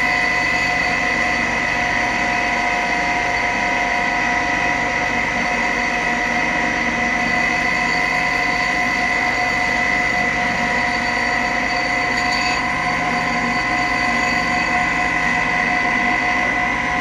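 Electric motor of a shop machine running steadily, a constant high whine with several steady tones and no change in speed.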